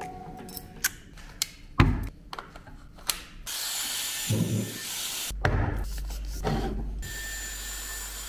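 Sharp clicks and knocks as a corded hot-air hair styler is handled, the loudest just under two seconds in. Then the styler runs, blowing air with a steady hiss that stops briefly about five seconds in and gains a high, steady motor whine near the end.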